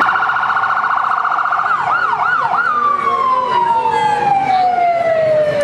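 Emergency vehicle siren, starting suddenly with a rapid warble, then three slower rising-and-falling wails, then a single long tone falling steadily in pitch.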